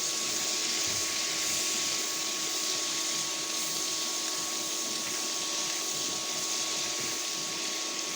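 Chicken pieces marinated in soy sauce sizzling in hot oil in a kadai (wok): a steady frying hiss, with a faint steady hum underneath.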